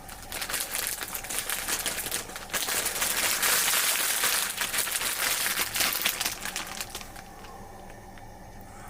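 Hot oil in a frying pan sizzling and crackling as menchi katsu (minced-meat cutlets) go in to deep-fry at about 170 °C. The crackle builds to its loudest in the middle and dies back about seven seconds in.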